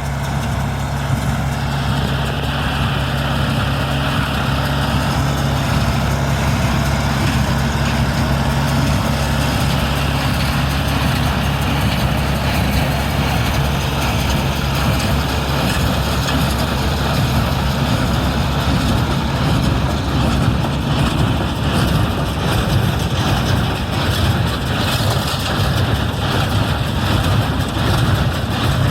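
A vehicle engine running steadily and close, at an even pace, with no change in speed.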